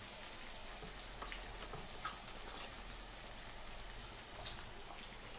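Faint, steady sizzle of fried chicken pieces with onion and capsicum cooking in oil in a wok, with a few light clicks, the sharpest about two seconds in.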